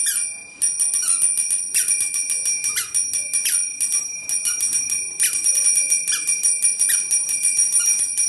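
Bright, rapid bell ringing, many quick strikes a second over steady ringing tones, laid over the pictures as an added sound effect.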